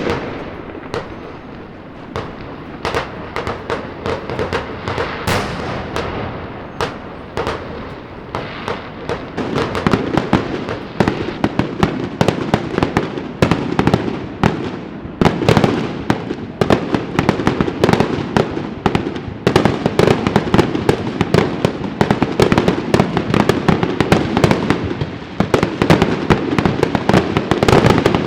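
Fireworks and firecrackers going off in a dense, continuous barrage of rapid cracks and bangs over a rumbling background, thinning briefly a couple of seconds in and building louder and denser toward the end.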